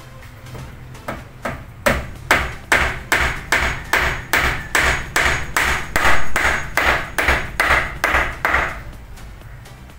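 Claw hammer striking the top of a turned wooden baluster where it meets the handrail, fixing the baluster in place. It starts with two light taps, then gives a steady run of sharp blows about three a second that stops near the end.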